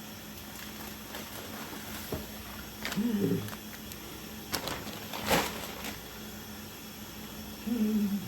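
Food containers being handled while a refrigerator is cleared out: a few short knocks and rustles over a steady low hum, with two brief vocal sounds, one about 3 seconds in and one near the end.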